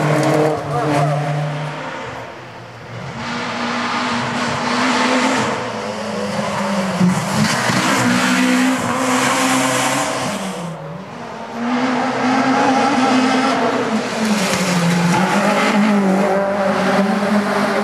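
Competition cars taking a coned slalom course one after another, each engine revving up and dropping back between the gates, with tyres squealing.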